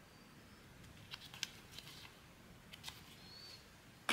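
Faint, sharp clicks and taps from handling a blind box and its small zinc-alloy badge, half a dozen spread across the middle, with a louder click at the very end.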